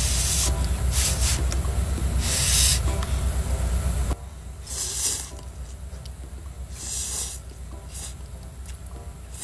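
Instant ramen noodles being slurped from a bowl: a series of short, hissing slurps a second or two apart, over a steady low hum that drops away about four seconds in.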